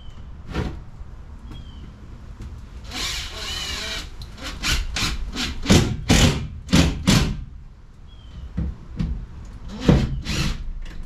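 Cordless drill driving screws into plywood, whirring for about a second around 3 s in and again at the very end. Between the whirs come a run of sharp knocks, about two a second.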